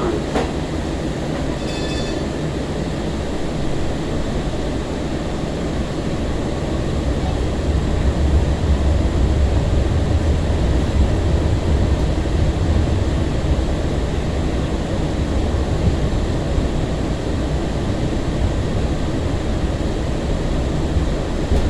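Running noise heard from inside a 2002 Breda LRV3 light-rail car on street track: a steady low rumble that grows louder from about seven seconds in and then holds. A brief high ringing tone sounds about two seconds in.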